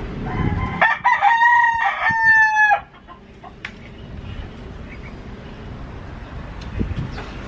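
A rooster crowing once: a single cock-a-doodle-doo lasting about two and a half seconds, starting within the first second and cutting off sharply.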